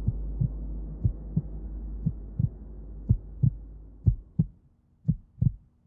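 Heartbeat sound effect: paired low thumps about once a second, over a low drone that fades away about four seconds in.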